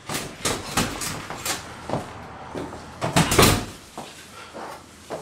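Footsteps crossing a room, then a hotel room door being opened and shut, loudest about three seconds in, with a short knock near the end.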